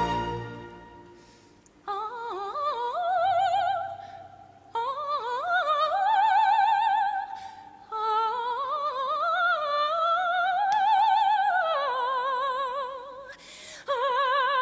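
Solo soprano voice singing an operatic line of long held notes with wide vibrato, in four or five phrases with short breaths between; the line climbs in the middle and drops back, with only faint accompaniment beneath.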